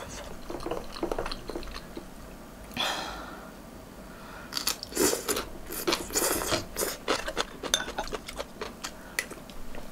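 Close-up biting and crunchy chewing of a kimchi side dish, with many short crisp crunches from about halfway through, and a metal spoon clinking in a small ceramic bowl near the end.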